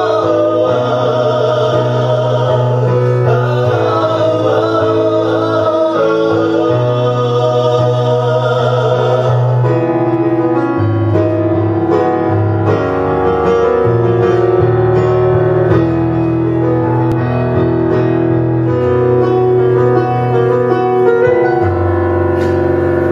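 Live music: an instrumental interlude of a slow song, a wavering melody line over sustained chords and a low bass line.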